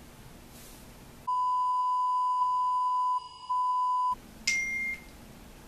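A steady electronic beep tone, about three seconds long with a brief dip near its end, followed about a second later by a click and a short bright ding.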